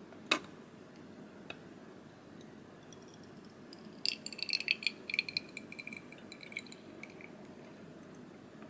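A sharp click as the knob on a glass gravity-release teapot's lid is pressed down, opening the infuser's valve. From about four to seven seconds in, brewed tea drains from the infuser cup into the glass pot with high, tinkling gurgles and drips.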